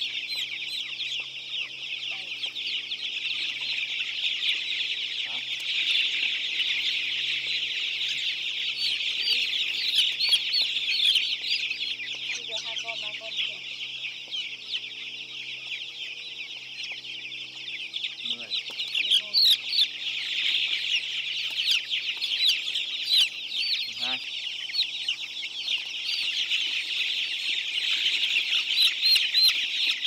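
A flock of young chicks peeping continuously, a dense chorus of overlapping high-pitched chirps.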